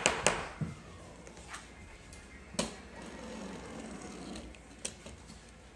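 Light taps on a hardwood floor: a quick few at the start, then two single knocks a couple of seconds apart, over quiet room noise.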